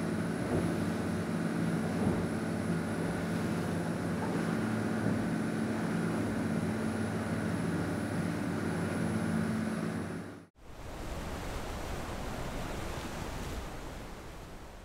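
Hunt 44 motor yacht's pod-drive engines droning steadily under way, heard at the helm. About ten seconds in the sound cuts to a rush of wind and water, which fades out near the end.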